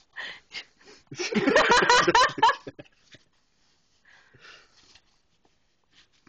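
People laughing hard without words. There are short breathy bursts, then a loud fit of laughter for about a second and a half, trailing off into faint breathy sounds.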